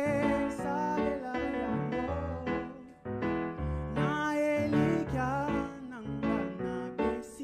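A man singing a gospel song in Lingala into a microphone, holding long notes with vibrato, over instrumental accompaniment; the voice drops out briefly about three seconds in.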